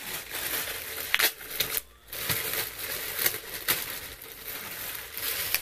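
Clear plastic bag crinkling and rustling with irregular crackles as hands work it open, with a brief lull about two seconds in.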